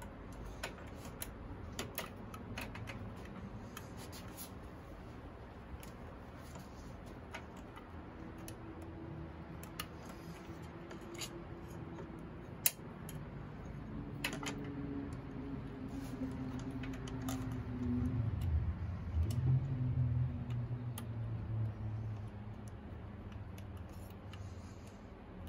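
Scattered small clicks and taps of hands handling the rectifier's wire terminals and small metal parts. A low hum swells in the second half, loudest about two-thirds of the way in, then fades.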